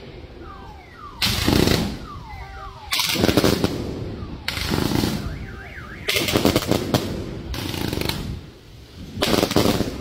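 Aerial fireworks shells bursting overhead in a steady sequence, about six loud blasts roughly a second and a half apart. Each blast is a sharp bang that breaks into a short rattle of crackling.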